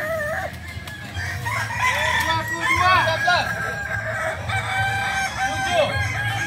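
Several Kukuak Balenggek roosters crowing at once. Their long crows overlap, each made of repeated rising-and-falling syllables.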